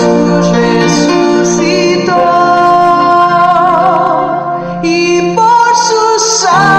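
A woman singing a Christian song of faith over instrumental accompaniment, holding long notes with a slight waver.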